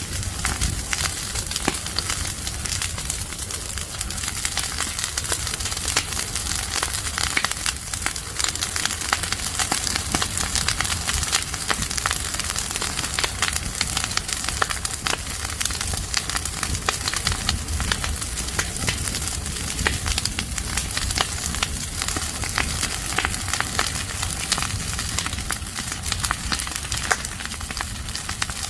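Leaves and branches burning in an open fire, crackling with dense, irregular pops and snaps over a steady hiss.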